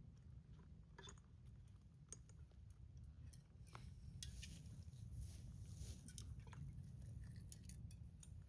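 Faint gear-handling noises: scattered small clicks and rustles over a low steady rumble.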